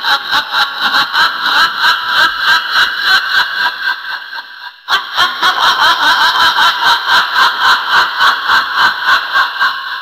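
High-pitched witch's cackle in a woman's voice: a rapid run of "ha-ha-ha" bursts, about four a second, in two long peals. There is a short break about four and a half seconds in, and the second peal fades away at the end.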